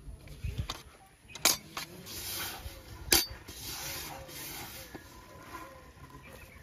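Two sharp clanks on an aluminium bucket, about a second and a half apart. Between and after them comes the gritty rustle of a hand stirring grainy bait inside the bucket.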